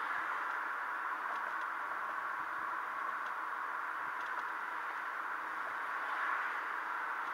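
Steady hiss of road and wind noise inside a moving car, picked up by a dashcam microphone.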